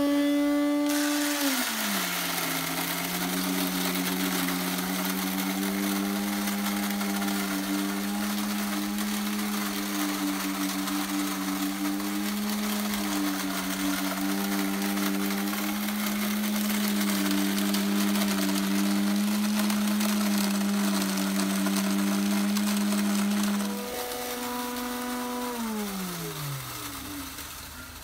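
Novital Davide 4V electric grain mill grinding chickpeas. Its motor note drops as the grain feeds in and then holds steady under a dense grinding hiss for about twenty seconds. Near the end the hiss stops and the motor speeds up as the hopper runs empty, then it is switched off and winds down in a falling whine.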